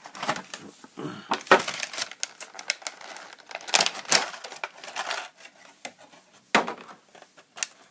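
Small plastic action-figure accessories and packaging being handled: an irregular string of sharp clicks, taps and short rustles, with a few louder knocks.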